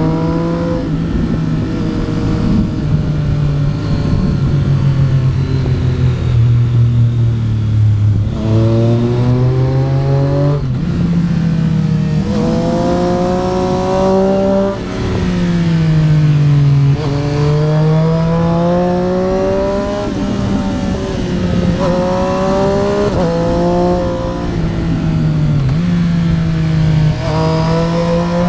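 Triumph Street Triple RS inline three-cylinder motorcycle engine under way, its note climbing through the revs under throttle and dropping sharply at each upshift, then falling away more slowly when the throttle is closed. This happens several times over.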